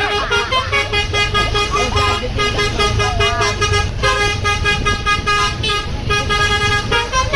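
A bus's 'telolet basuri' musical horn playing a quick tune of short repeated notes, over the low rumble of the bus engine.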